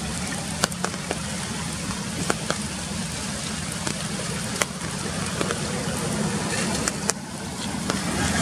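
Steady rain falling on forest leaves, with scattered sharp taps of drops landing close by. A low steady rumble lies underneath.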